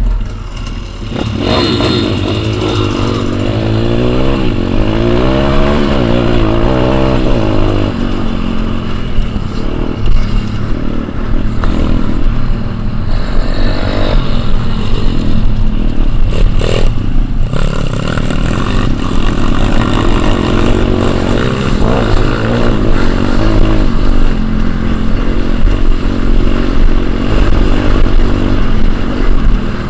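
Pit bike engine revving up and down through the gears as it is ridden hard over dirt, with heavy wind rumble on the microphone. A couple of sharp knocks come from the bike, one near the start and one about halfway through.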